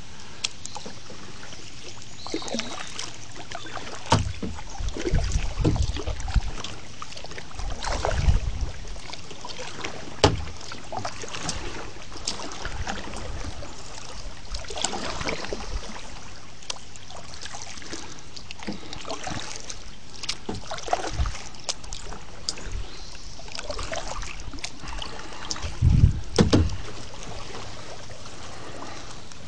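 Kayak being paddled: water swishing with the paddle strokes over a steady wash of noise, with irregular low thumps against the boat, the loudest pair near the end.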